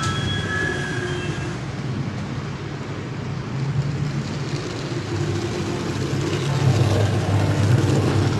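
Model train running along the layout track, its wheels rumbling over the rails and growing louder toward the end, as if it is coming closer. A thin high wheel squeal fades out about a second and a half in.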